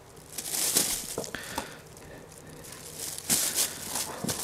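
Thin plastic shopping bag rustling and crinkling as small potatoes are picked out of potting soil and dropped into it, with a few light knocks of potatoes landing.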